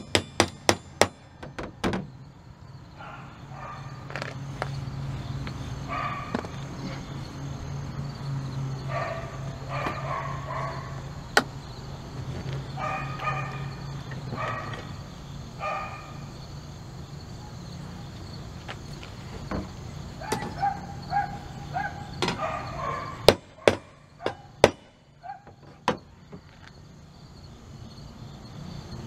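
Claw hammer tapping a windshield wiper arm down onto its pivot shaft: quick sharp metallic knocks at the start, a single knock about eleven seconds in, and another cluster about twenty-three seconds in. A dog barks repeatedly in between.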